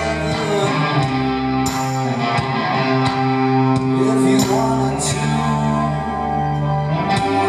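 A rock band playing live, with electric guitar and long held bass notes under a male vocal.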